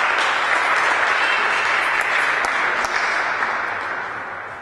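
Spectators applauding a won point in a table tennis match, a steady clapping that dies away near the end.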